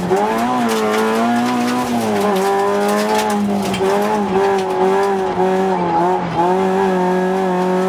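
Rally car engine heard from inside the cockpit, running hard at high revs through a special stage, the revs dipping and recovering briefly about four times.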